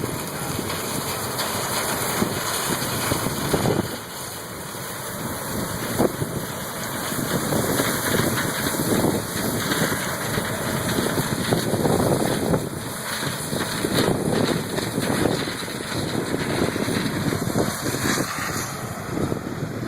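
Combine harvester running as it picks corn, a steady machine noise with uneven surges, with wind buffeting the microphone.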